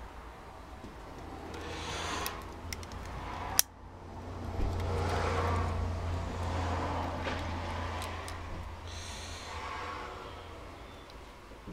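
Light clicks and scrapes of metal parts as the brushes are worked into a Bosch starter motor's brush carrier with a thin screwdriver, with one sharp click about three and a half seconds in. A rushing noise over a low hum swells and fades several times and is loudest in the middle.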